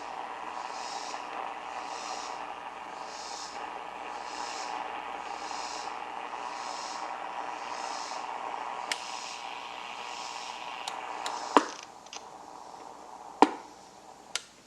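Hallicrafters SX-100 shortwave receiver hissing with static through its speaker, the upper hiss pulsing a little more than once a second. Near the end two sharp clicks of a front-panel switch being turned, after which the hiss drops lower.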